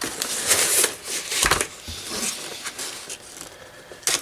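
Paper and packing material rustling and crinkling as they are handled, with a dull thump about one and a half seconds in.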